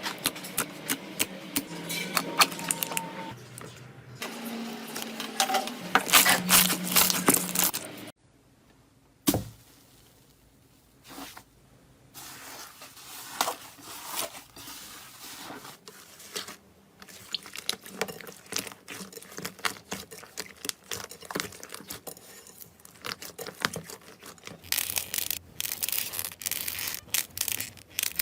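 Slime being squeezed, pressed and stretched by hand, with rapid sticky crackles and pops. The sound drops off abruptly about eight seconds in, stays faint for a few seconds, then builds back into dense crackling near the end.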